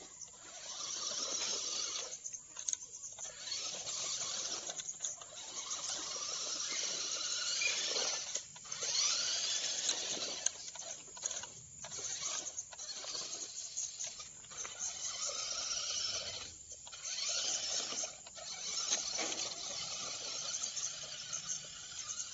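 Small electric motors and gearboxes of toy RC rock crawler trucks whining in stop-start runs, the pitch rising and falling with the throttle as they are driven over grass.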